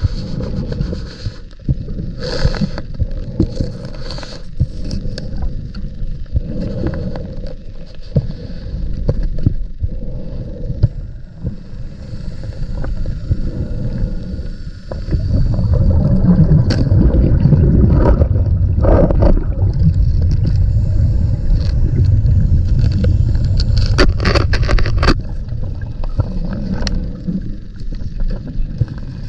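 Muffled underwater noise from a scuba diver's camera housing in a flooded cave: a low rumble of exhaled bubbles and water moving past, with scattered knocks and scrapes. The rumble grows louder about halfway through.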